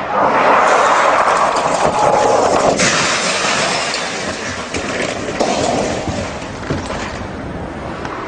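Loud, distorted car noise from a night drifting run, with a sudden harsher blast of noise about three seconds in that fades away.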